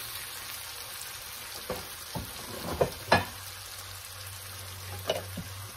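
Thin steaks sizzling in a pan of caramelized-sugar sauce just uncovered, a steady frying hiss. A few short sharp knocks of utensils or cookware cut in, the loudest about three seconds in.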